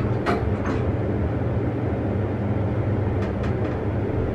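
Hotel elevator car heading down: a steady low rumble and hum of the car running in its shaft, with a few light clicks or rattles about a quarter second in and again around three seconds in.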